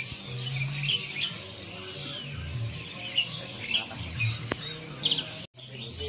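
Many caged songbirds chirping and whistling at once, a dense overlapping chorus of short calls, with music playing underneath. The sound drops out for an instant near the end.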